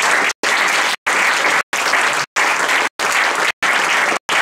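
Audience applauding steadily, with the sound cutting out briefly about every two-thirds of a second.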